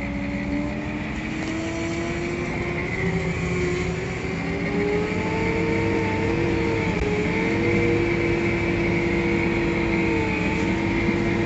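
Tractor engine running under load, heard from inside the cab. Its pitch climbs a few seconds in and then holds steady with small dips. A steady high whine sits above it.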